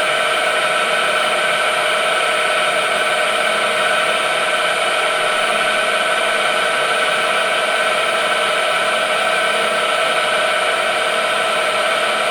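A metal lathe taking a boring cut inside a steel part with a slender boring bar. The bar chatters and sings with a steady, loud, high ringing of several tones over the cutting noise, the chatter that leaves a bad surface finish in the bore.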